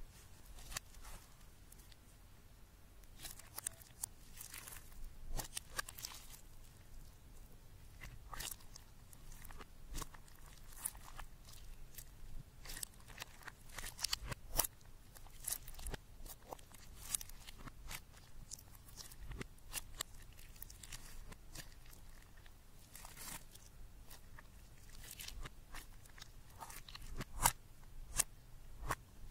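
Hands squeezing, poking and kneading a lump of slime mixed with glitter and bits, making irregular sticky crackles and small pops. The sounds are quiet and uneven, with a sharper pop near the end.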